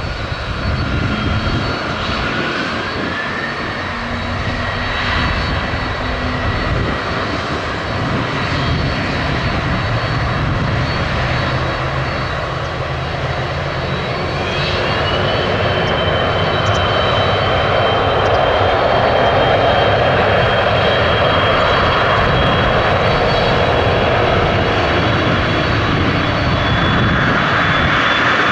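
Embraer E170 regional jet's twin turbofan engines spooling up to takeoff thrust. A high whine rises in pitch about three seconds in and again around fifteen seconds, over an engine roar that grows steadily louder.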